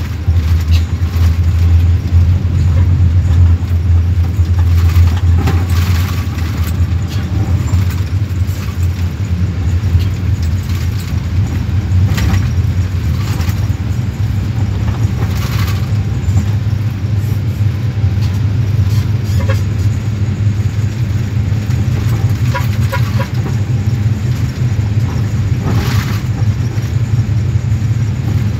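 A bus's engine and road noise heard from inside the moving bus: a steady low rumble, with a few brief hissing swells.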